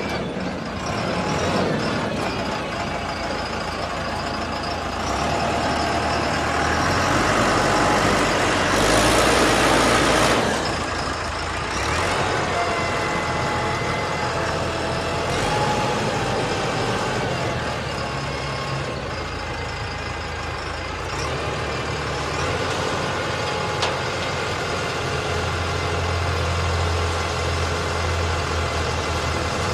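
Self-loading concrete mixer running, its diesel engine holding a steady low hum under shifting whining tones. About nine seconds in comes a loud rush of hissing noise lasting a second or two.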